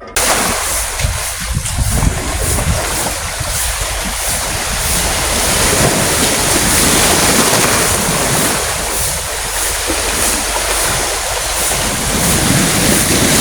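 Wind buffeting the microphone in irregular low gusts over a loud, steady rushing noise. It comes in suddenly at the start.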